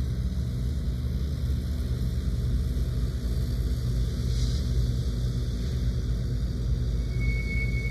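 Diesel-electric freight locomotives running at low throttle while switching in a yard, a steady low engine rumble. A short hiss comes about halfway, and a thin, high, steady squeal begins near the end.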